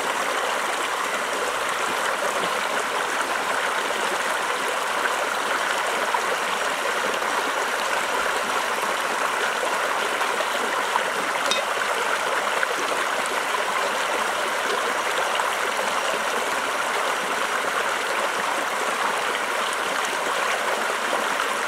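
Steady rushing of a river flowing past rocks.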